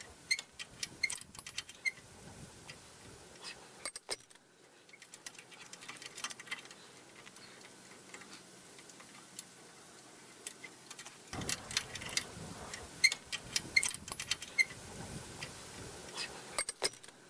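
Light, irregular metallic clicks and clinks of hydraulic hose fittings being handled and threaded by hand onto a log-turner lift cylinder, coming more often in the last few seconds.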